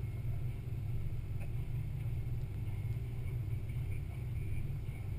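Steady low rumble of a Jeep driving slowly across beach sand, picked up by a camera mounted on its hood.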